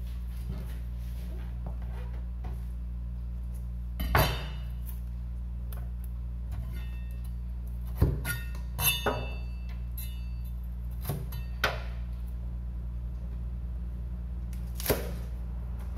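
A Chinese cleaver striking a plastic cutting board in a handful of separate chops spaced seconds apart, the loudest about four seconds in, with a light metallic clink around the middle. A steady low hum runs underneath.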